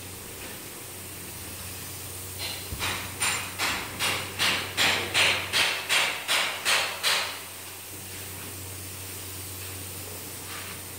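Paint sprayer hissing steadily over a low hum as finish is sprayed onto a wood floor. From about two seconds in to about seven seconds in, a run of about a dozen regular hissing pulses, two to three a second, each building up and then cutting off sharply.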